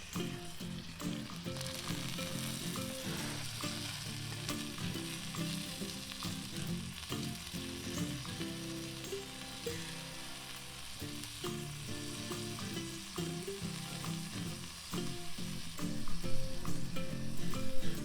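Food sizzling and frying over a campfire, a steady hiss with fine crackles running throughout.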